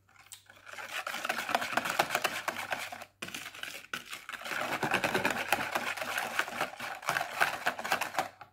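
Metal wire whisk beating instant chocolate pudding mix in a plastic measuring jug: a fast, continuous clatter and scrape of the wires against the plastic. It breaks off briefly about three seconds in and stops just before the end.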